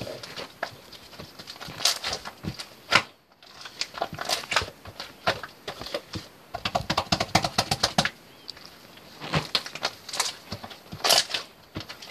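White slime being squeezed, poked and stretched by hand, making irregular sticky clicks and small air-bubble pops, with a quick run of tiny pops about two-thirds of the way through.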